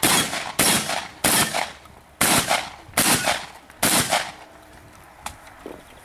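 Shotgun fired six times in quick succession, roughly a shot every three-quarters of a second, each report ringing briefly; the firing stops about four seconds in.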